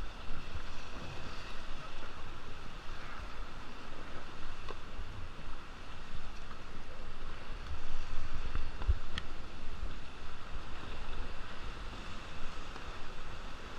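Rushing river water around a raft in whitewater, with wind buffeting the microphone and a couple of brief knocks.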